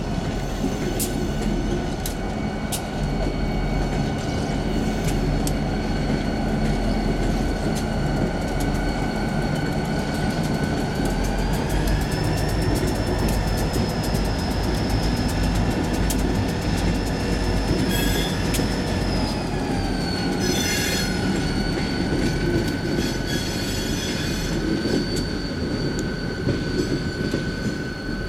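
EMD SD40-2 diesel locomotives with V16 two-stroke engines rolling slowly past in a string, their engines rumbling steadily. A steady high-pitched wheel squeal rises slightly in pitch a little before the middle and settles back down later, over the clicking of wheels on rail joints.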